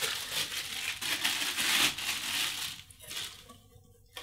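Small clear plastic bag crinkling as it is handled, stopping about three seconds in.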